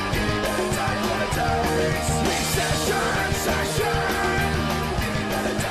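Outro music: a punk rock song with distorted guitars, bass and drums and a sung vocal.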